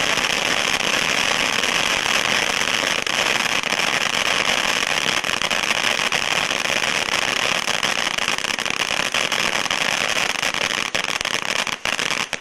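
Golden Shower fan-shaped 500-gram firework fountain burning: a steady hissing rush of sparks peppered with crackling.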